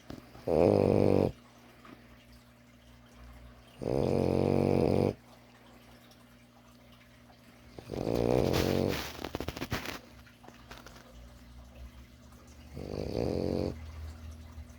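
French bulldog puppy snoring in her sleep: four loud snores, one per breath, about every four seconds. The third is longer and ends in a fluttering rattle.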